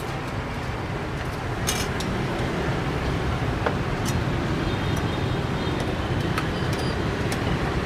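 Steady street traffic rumble, with a few light clinks of steel ladles and bowls.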